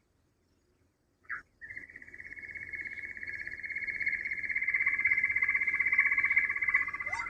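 A quail calling: a short chirp about a second in, then a long rapid trill on one steady pitch that grows louder as it goes on.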